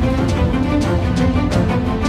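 Background music with a steady beat: held pitched notes over regular percussion hits, like a news intro theme.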